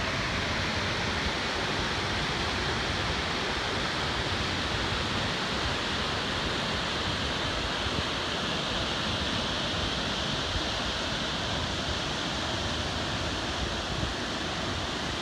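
Steady rushing of a waterfall, an even wash of noise without a break.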